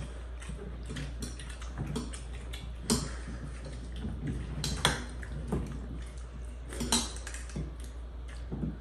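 Metal utensils clinking against dishes and pots, many light knocks and three sharper clinks about two seconds apart, over a steady low hum.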